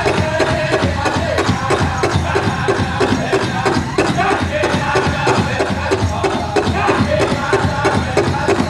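Powwow drum group singing a chicken dance song: a large drum struck in a steady fast beat, about three strokes a second, under the singers' chorus.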